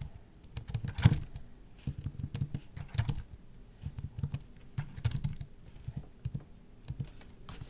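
Typing on a Microsoft Wedge Bluetooth keyboard: quick runs of key clicks with short pauses between them.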